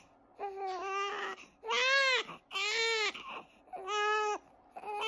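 Young infant crying hard in a string of about five wails, each rising and falling in pitch, with short breaths between; crying that the parent puts down to colic.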